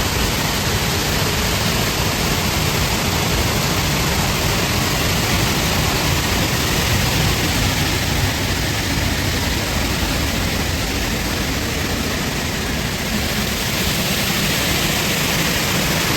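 Waterfall running full after heavy rain: a loud, steady rush of falling water.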